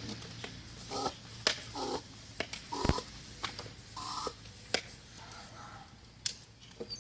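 Bike pump worked in short strokes to pressurise a converted Hydrocannon air tank through an inner-tube valve, with scattered clicks and knocks from handling the pump and rifle.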